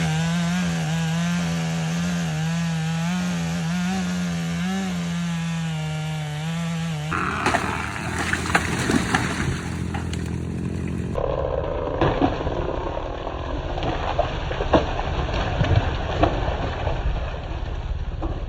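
Chainsaw running at high revs while cutting through the trunk of a large sweetgum tree: a steady buzzing drone that wavers slightly under load. After about seven seconds it gives way to a rougher, noisier stretch full of sharp cracks and knocks.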